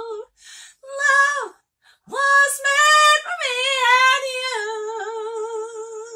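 A woman singing a jazz tune alone, with no accompaniment. Short phrases are broken by brief pauses, and her voice slides up into a phrase about two seconds in. Near the end she holds a long note with vibrato.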